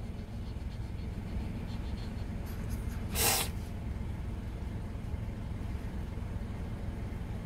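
Low steady hum of a car idling, heard inside the cabin, with one short, hissy sneeze from a Shih Tzu about three seconds in.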